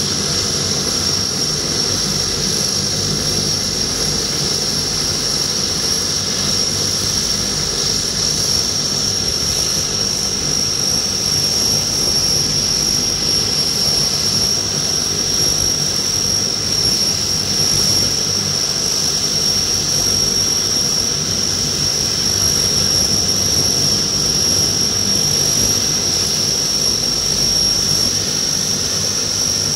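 Convair 580's two Allison turboprop engines running with propellers turning: a steady high turbine whine over a low propeller drone, holding even throughout.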